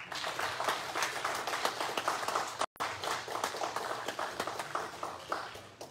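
Church congregation applauding: many hands clapping together, broken by a split-second dropout in the sound about two and a half seconds in. The clapping dies away near the end.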